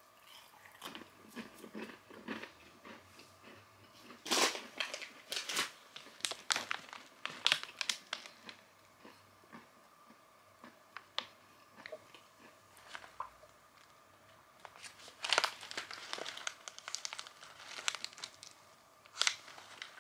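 Plastic snack packets crinkling as they are handled, in irregular crackling bursts. The loudest bursts come about four seconds in and again about fifteen seconds in.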